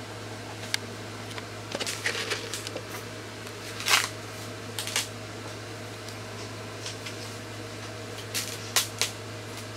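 A small turtle's claws scrabbling and tapping on the side of a plastic tub in shallow water: short irregular scratches and clicks, the loudest about four seconds in and a cluster near the end, over a steady low hum.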